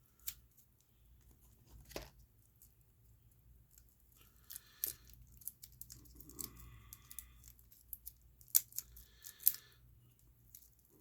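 Small sharp clicks and light scraping of watchmaker's tools against a pocketwatch movement while fitting the tiny hands, with two louder ticks near the end.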